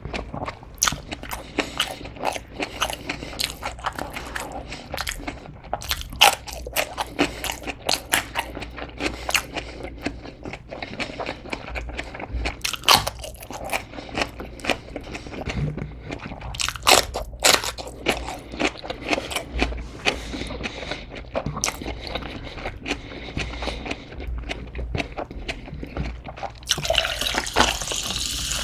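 Close-miked chewing and crunching of food, including a raw green chili pepper, with many wet mouth clicks. Near the end a soda is poured from a can over ice into a glass, fizzing with a steady hiss.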